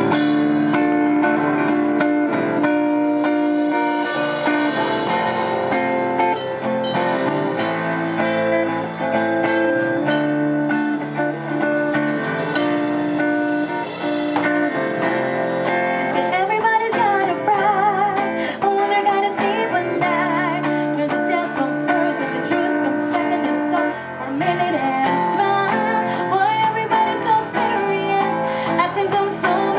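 A live band playing a pop song: electric bass, hollow-body electric guitar and drum kit, with a woman singing lead.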